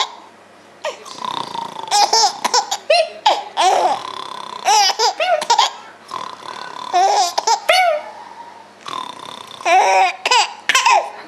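Baby laughing in repeated bursts of short, high-pitched giggles, with brief pauses between them.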